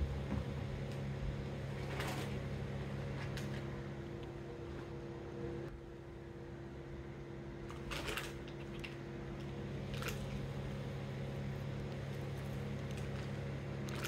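A steady mechanical hum runs throughout, with a few short scratchy clicks on top, the clearest about two seconds in and just after the middle, as a cockatiel's beak nibbles at a rough perch.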